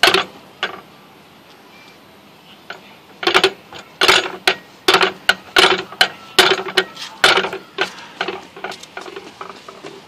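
Playground pirate ship's steering wheel clacking as a toddler turns it: a run of sharp knocks, two or three a second, from about three seconds in until nearly eight seconds, with a couple of single clacks before.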